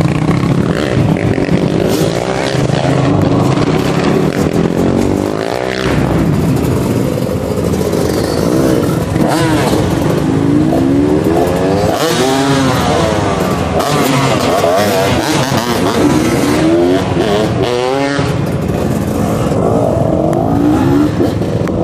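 Several motocross bike engines idling and being revved, their pitches rising and falling again and again and overlapping.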